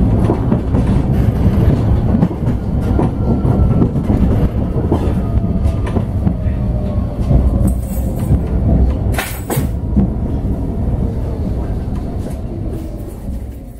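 Interior running noise of a Nottingham Express Transit tram: a steady low rumble with wheel-on-rail clicks and clatter, under a faint motor whine that slowly falls in pitch. A brief sharp noise comes about nine seconds in, and the sound fades out at the end.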